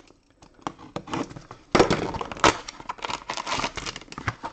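Shrink-wrap on a trading card box being cut with a small blade, then plastic wrap crinkling and cardboard rustling as the box is torn open and a foil pack pulled out. Scattered light clicks at first, then a dense crackling rustle from just under two seconds in that dies away near the end.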